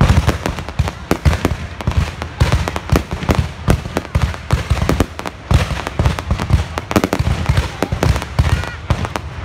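Aerial firework shells bursting one after another, a dense run of booms with crackling between them and no pause.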